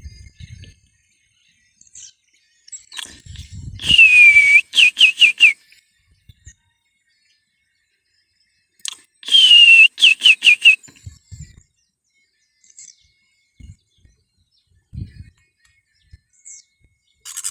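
A clear whistled call, given twice about five and a half seconds apart: each time one long falling note followed by four quick short falling notes.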